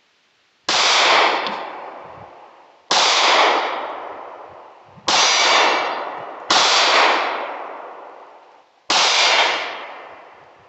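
Five handgun shots fired at an uneven pace, each a sharp crack followed by a long echo that fades over a second or so.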